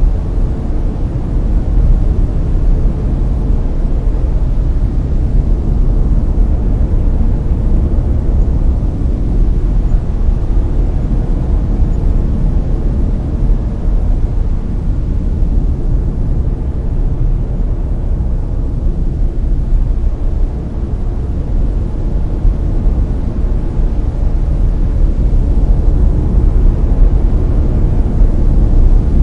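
Layered brown noise: a steady, deep rushing hiss, strongest in the bass and fading toward the treble, with no rhythm or events.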